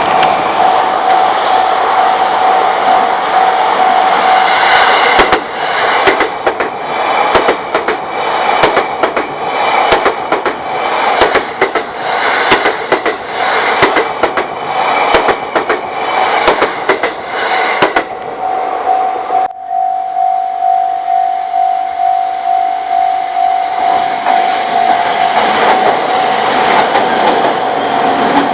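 Japanese level-crossing alarm bell ringing with its steady, rapidly pulsing tone while a train passes, wheels clattering over rail joints. About two-thirds of the way through the sound cuts abruptly to the crossing bell on its own, and train noise builds again near the end.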